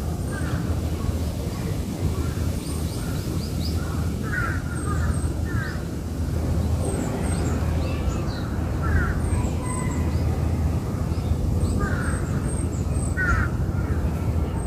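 Crows cawing in short runs of calls every few seconds, with small birds chirping faintly and higher, over a steady low rumble.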